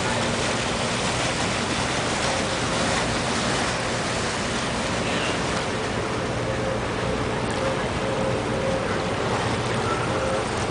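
Steady rush of water wash and wind with a low engine drone, as heard aboard a moving boat.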